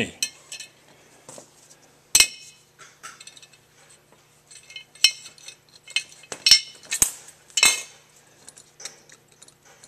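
Metal clinks of needle-nose pliers and carburetor parts being handled and set down on a steel workbench: a scattering of sharp, ringing clicks, the loudest about two seconds in and a cluster between five and eight seconds.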